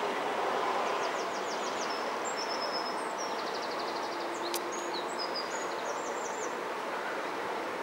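A small songbird singing short, rapid trills and chirps over a steady rush of distant jet aircraft noise from taxiing airliners. There is one sharp click about four and a half seconds in.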